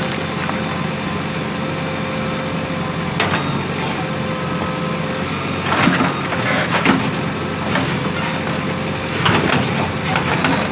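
JCB 3DX Plus backhoe loader's diesel engine running steadily. A few sharp clunks come through, the loudest about six and seven seconds in.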